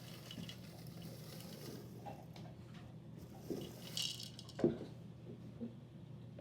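Popped popcorn being tipped from a popcorn popper into a bowl: light rustling and a few knocks of the containers, the sharpest knock about three quarters of the way through, over a steady low hum.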